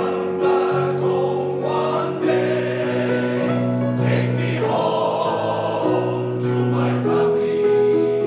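Male voice choir singing in sustained harmony, the chords shifting together every second or two.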